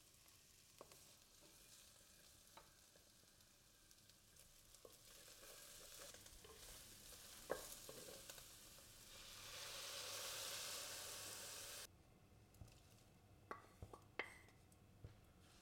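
Faint sizzling of pork belly, squid and mushrooms stir-fried in a clay pot, with occasional light knocks of a wooden spatula. The sizzle grows louder and then cuts off suddenly about twelve seconds in, followed by a few light clicks.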